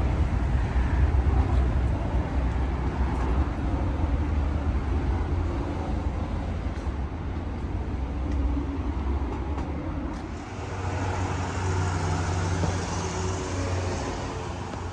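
Steady outdoor street ambience: a continuous rumble of vehicle traffic.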